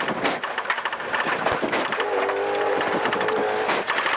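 Saab 9-3's turbocharged engine running hard, heard from inside the cabin, with gravel spraying and knocking against the car's underside. From about halfway in the engine holds a steady note for a second or two.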